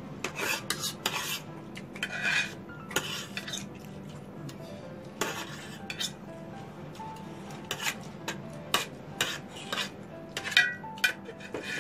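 Metal spoons and forks scraping and clinking against metal serving trays while food is scooped up: an irregular run of sharp clicks and short scrapes, some of them ringing briefly.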